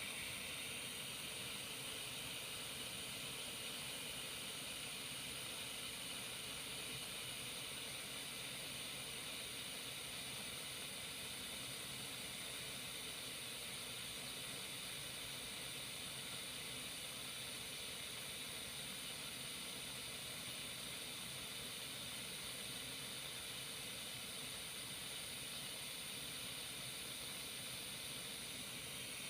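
Dremel Versatip 2000 butane soldering iron burning with a steady, even hiss as it heats.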